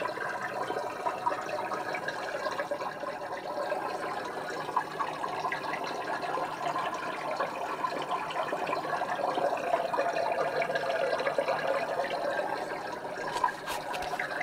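Steady bubbling, trickling water of an aquarium screensaver's sound effect, like air bubbles rising through a fish tank. A few light clicks near the end.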